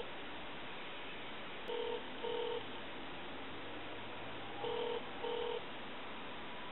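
Telephone ringback tone heard down the line: pairs of short beeps, a double ring repeating about every three seconds, as a transferred call rings without being answered. Steady telephone-line hiss runs underneath.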